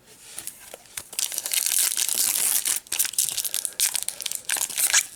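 Trading-card pack wrapper crinkling and tearing open, a dense crackling with small snaps that grows louder about a second in.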